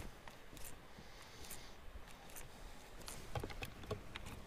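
Faint, scattered small clicks from a baitcasting reel and rod being handled, over quiet water.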